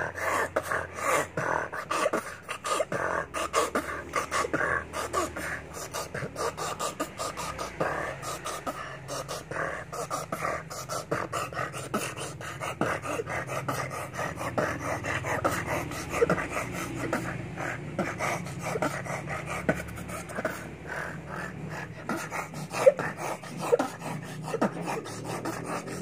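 A boy beatboxing into his cupped hands: a fast, unbroken run of mouth-made drum beats and hums with no words.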